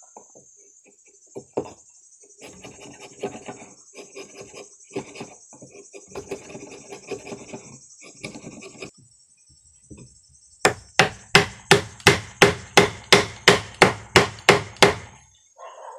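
Wood chisel paring bark and wood off the end of a green branch in a series of scraping strokes, shaping a round tenon. Then about fifteen quick, sharp knocks, some four a second, as the branch leg is driven into its hole in the wooden slab, over a steady high buzz of insects.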